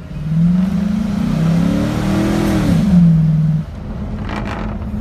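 Car running, heard from inside the cabin. Over it a loud pitched drone glides up and down for about three seconds, then cuts off suddenly, leaving a steady low hum.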